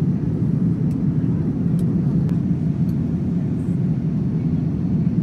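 Steady, deep rumble of a Boeing 787-9 airliner in flight, heard from inside the passenger cabin: the even roar of engines and airflow.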